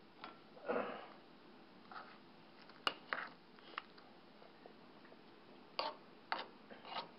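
Faint scattered clicks and light knocks from a stainless steel pot of mung beans boiling on a gas stove, with a cluster of sharper knocks near the end as a spoon stirs in the pot.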